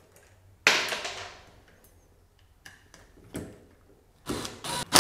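Cordless DeWalt driver spinning screws in short bursts: one sharp burst under a second in that fades out, a couple of brief blips, then bursts again near the end, as an old switch's mounting screws are driven out.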